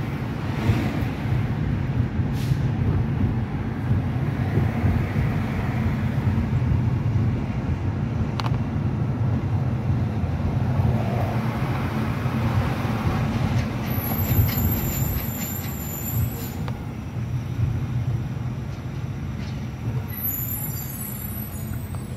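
Steady road and engine rumble of a car heard from inside its cabin while driving through city traffic. A thin high-pitched whine cuts in twice, about two-thirds of the way through and again near the end.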